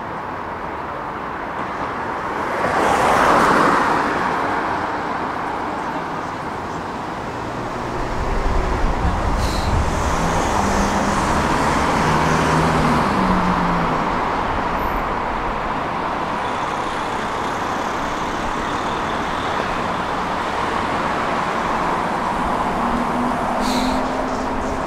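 Tram in motion: steady rumble and running noise, with a louder swell about three seconds in. From about eight seconds in a low rumble builds, and around ten to thirteen seconds in a low motor hum steps up in pitch.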